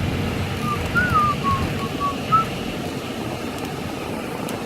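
A person whistling a short, wavering tune, the notes stopping about two and a half seconds in, over the steady low rumble of a car driving.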